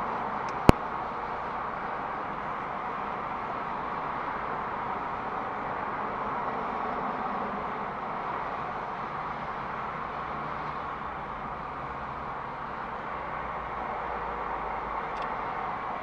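Steady vehicle and traffic noise heard from inside a car cabin, with one sharp click just under a second in.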